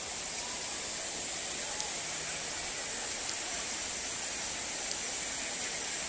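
Steady, even rushing of a waterfall over rocks, with a few faint ticks.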